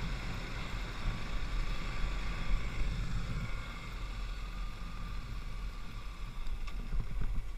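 Kawasaki KLX 250's single-cylinder four-stroke engine running at a steady pace while the dirt bike rides along a trail, over a heavy low rumble.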